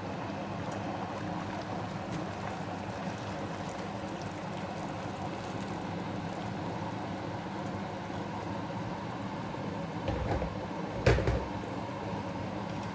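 Boiled water poured from a kettle into a pan of vegetable soup, a steady liquid pouring and bubbling sound. There is a short clunk about eleven seconds in.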